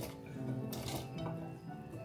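Carrot pieces being scraped by hand off a plate into a soup pot, a brief scrape and clink just under a second in, over background music with held notes.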